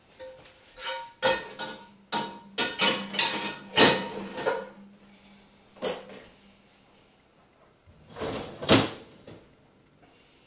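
Dishes, pots and cutlery clattering and clinking on a kitchen counter in quick runs of knocks as they are handled. Near the end the dishwasher is opened and its lower rack pulled out, ending in one loud clatter.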